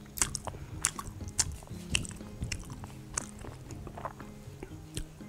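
Close-miked chewing of a mouthful of seafood and green onion pancake (haemul pajeon): sharp, short mouth clicks and smacks at irregular intervals, roughly every half second.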